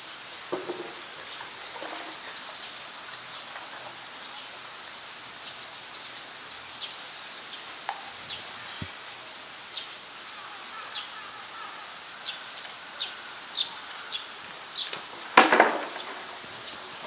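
A small bird chirps in short single high notes every second or so over a steady low hiss. Near the end comes a single loud knock as the polar bear's hollow plastic ball toy bumps on the concrete.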